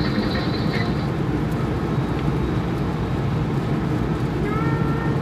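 Steady engine and tyre noise heard from inside a car's cabin while it cruises on a highway: a constant low rumble.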